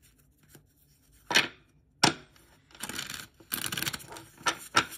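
A deck of oracle cards being shuffled by hand: a couple of sharp snaps, then a dense riffle of cards flicking together about three seconds in, and a few more quick snaps near the end.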